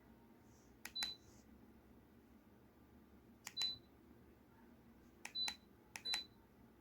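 Dreo space heater's top control panel beeping as its buttons are pressed: four times, a click followed by a short high beep, the last two close together.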